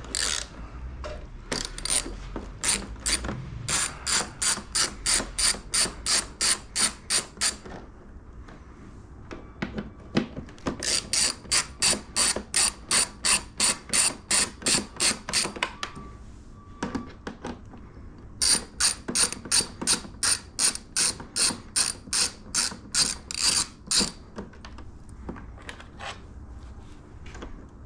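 Small hand ratchet with an extension and Torx T27 bit, its pawl clicking as it backs out three windshield bolts. There are three runs of quick, even clicks, about three a second, with short pauses between them.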